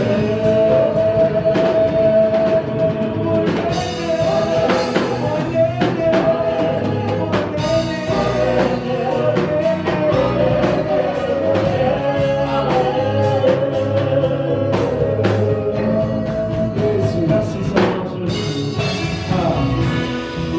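Live gospel worship music: singing with a band, with regular drum strikes under long held vocal notes.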